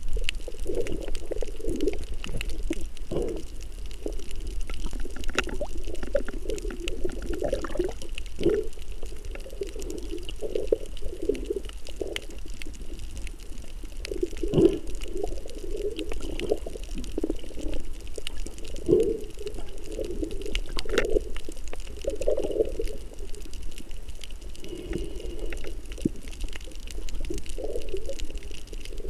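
Underwater sound picked up through a camera's waterproof housing: irregular, muffled gurgling and sloshing of water, with a faint steady high whine behind it.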